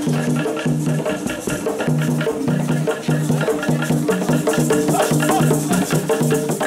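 Live African-style drumming: tall wooden hand drums and other percussion playing a fast, steady rhythm, with a short repeating low melody running under the beat.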